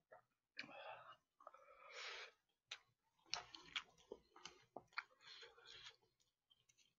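Faint eating sounds: soft chewing noises, then a run of light clicks about halfway through as chopsticks pick through braised chicken in a plastic takeout tray.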